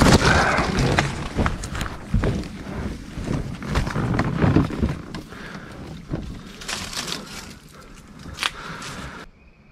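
Leaves and branches rustling and scraping over the camera and the kayak as the boat is pulled by hand through overhanging brush, with scattered cracks and knocks of twigs and the hull. Loudest in the first second, thinning out in the second half, and cutting off suddenly near the end.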